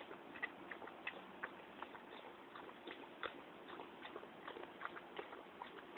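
Faint, irregular small clicks and light water noise, a few a second, from a Belgian Tervuren dog lying in the water of a plastic paddling pool.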